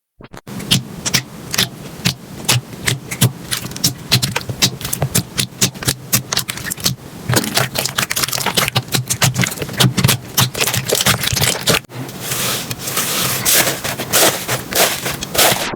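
Slime being squeezed and worked by hand, giving a dense run of crackling, popping clicks; about twelve seconds in it changes to a softer, hissier squishing.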